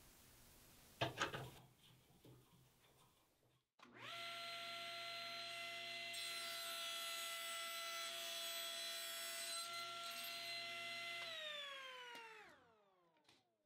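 A sharp knock about a second in, then a table saw starting and running with a steady whine while its blade cuts through the end of a black walnut board, with a hiss of cutting in the middle. Near the end the saw is switched off and the whine falls away as the blade spins down.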